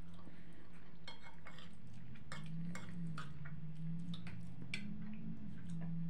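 Metal spoon clinking and scraping against a plate of buckwheat: a scattering of light, irregular clicks over a low steady hum.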